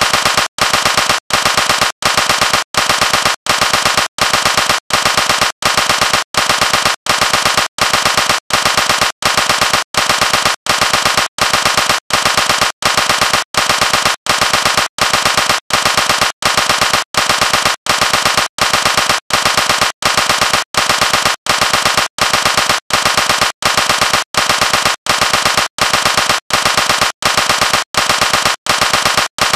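Rapid gunfire-like crackle in identical short bursts, repeating at an even beat of nearly two a second without any change.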